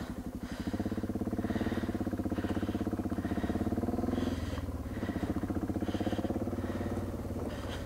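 Triumph Tiger 800's three-cylinder engine pulling away at low revs with an even throbbing beat. The note drops briefly about four and a half seconds in, then picks up again.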